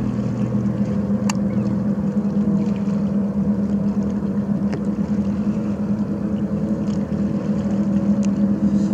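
Motorboat engine droning steadily out on the water, a low even hum with a couple of faint ticks.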